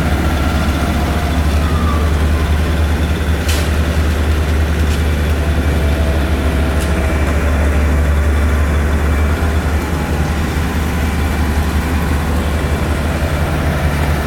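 Heavy vehicle engine idling steadily, a deep unbroken low hum, with a couple of faint light clicks about three and a half and seven seconds in.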